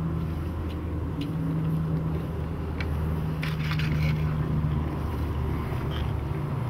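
A car engine running steadily at low revs, a low even drone, with a few faint clicks.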